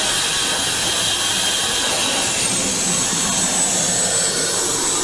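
Lollipop vending machine's spiral grabber mechanism running: a steady whirring hiss with a thin high whine that rises in pitch just at the start and falls back about halfway through as the coil works in the lollipop pile.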